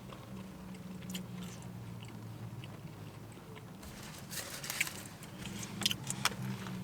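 A person chewing and biting fast food close to the microphone, with crunchy, irregular crackles that thicken in the second half, over a steady low hum.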